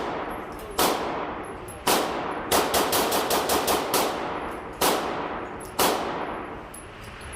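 Gunfire on a shooting range. Two single shots about a second apart are followed by a rapid string of about eight shots, then two more single shots. Each shot trails off in reverberation.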